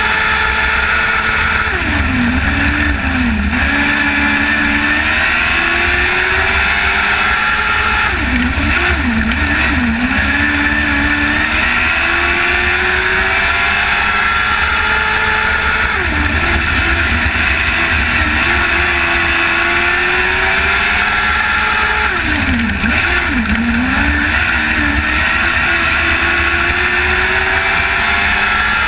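Lightning sprint race cars' engines running laps of a short oval. The engine note drops and climbs again about every seven seconds, as the cars slow for the turns and accelerate down the straights, with several engines heard at once.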